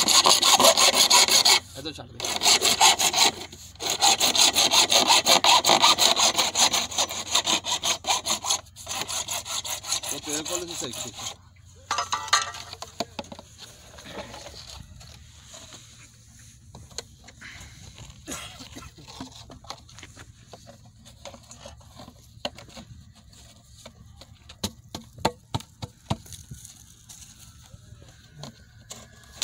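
Hacksaw cutting through a black drainage pipe in quick back-and-forth strokes, with two short pauses, stopping about eleven seconds in after one last brief burst. Then it is much quieter, with scattered taps and clicks.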